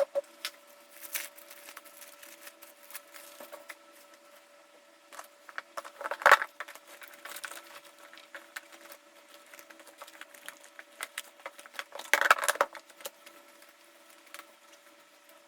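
Hands handling card-packing materials: scattered small clicks and taps, with two louder crinkling rustles about six and twelve seconds in, over a faint steady hum.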